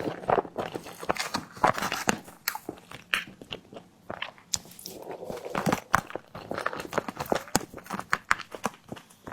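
Close-miked eating sounds: a person biting and chewing a tiger skin dessert, with many quick irregular clicks and wet mouth noises.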